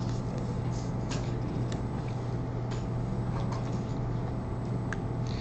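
Room tone: a steady low electrical hum with a faint hiss, broken by a few faint ticks.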